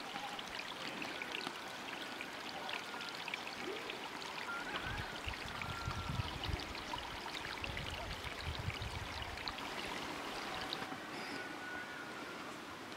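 Steady rushing of flowing water, like a hillside stream, with scattered small ticks and a few brief high chirps. A low rumble comes in from about five to nine seconds in.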